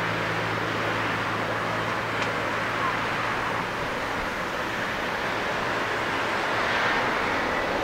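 Boeing 777-200ER taxiing, its twin jet engines at taxi power giving a steady rushing hiss with a low hum that fades out about halfway through.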